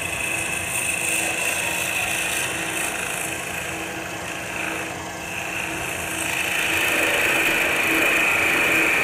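Hand-held turning tool cutting the spinning maple stem of a chalice on a wood lathe: a steady hiss of cutting over the lathe's steady hum. The cutting sound eases off around the middle and grows louder again in the second half.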